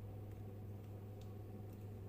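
Ceiling fan motor humming: a steady low hum, with a few faint ticks.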